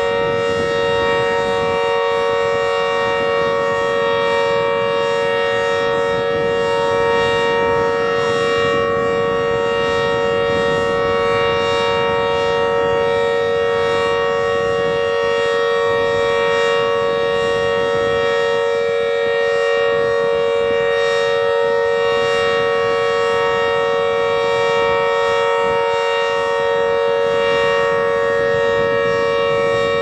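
Emergency Alert System-style alarm tone: a steady chord of several pitches held unbroken, without rising or falling.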